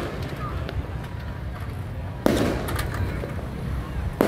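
Firecrackers going off: one loud bang a little past two seconds in, followed by a few smaller cracks, and another bang near the end, over a steady low rumble.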